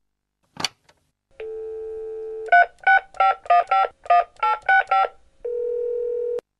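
Push-button telephone being dialled: a click, a steady dial tone for about a second, then about nine quick touch-tone beeps as a number is keyed in. Another steady tone follows for about a second and ends in a click.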